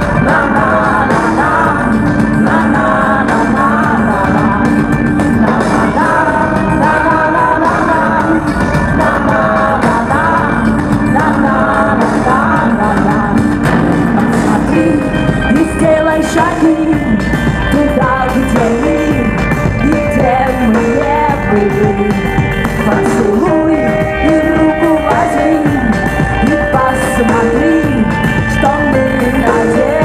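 Loud live rock band: a woman singing into a microphone over electric guitar, keyboards and drums.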